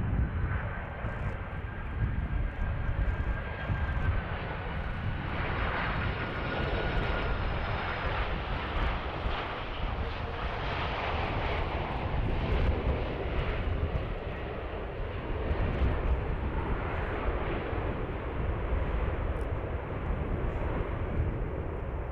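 Airplane engine noise: a steady drone over a low rumble, with a faint whine that dips slightly in pitch about five seconds in.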